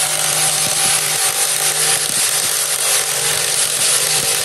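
Cordless brushless impact wrench hammering steadily as it undoes a 19 mm wheel lug nut on a car.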